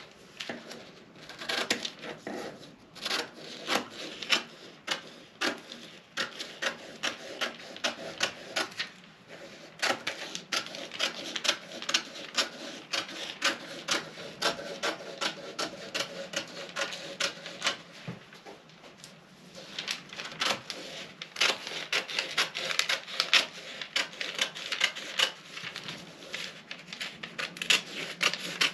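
Scissors cutting through pattern paper in a run of quick snips, about two to three a second, with the paper rustling, broken by a couple of short pauses.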